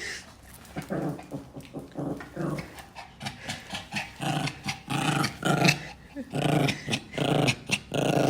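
Small Spitz dog growling in a string of short, repeated growls, growing louder from about halfway through.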